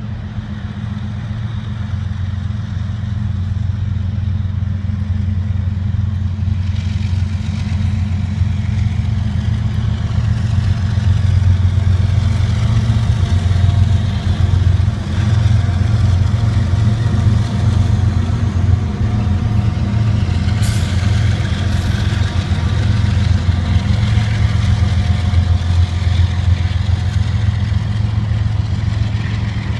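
Canadian Pacific freight train passing: the diesel locomotives' engines build to a loud, steady low drone as they come by, which carries on as the freight cars roll past. One sharp clank about two-thirds of the way through.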